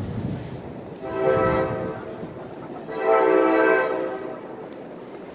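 NJ Transit train's air horn sounding two long blasts for the grade crossing, a chord of several tones together, each blast about a second long.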